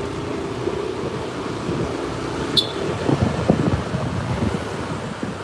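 Steady running noise of motor scooters on the move, engine hum mixed with wind and road noise. About two and a half seconds in there is one short, sharp high-pitched click, and a few low thumps follow over the next second or so.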